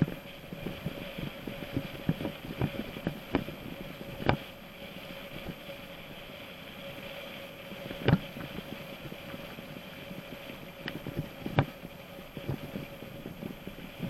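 Mountain bike riding over rough ground: irregular knocks and rattles, the hardest about four, eight and eleven seconds in, over a steady hum.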